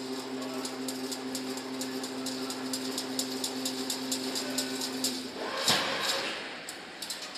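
Automatic chain link fence machine running: a steady motor hum with quick, uneven clicking from its wire-weaving mechanism. About five seconds in the hum stops, and a short, loud rush of noise follows.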